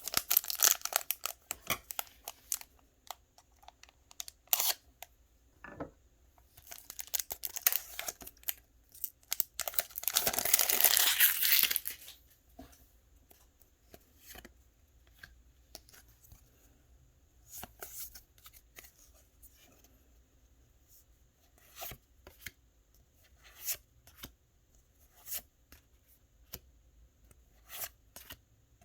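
Pokémon booster pack's foil wrapper being handled, crinkled and torn open, with the loudest, longest tear about halfway through. Afterwards the cards are handled and flicked through, with scattered soft clicks and rustles.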